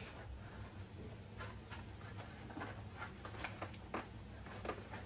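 Faint rustling of costume fabric being gripped and pulled over a prop's arm, with scattered soft ticks of handling.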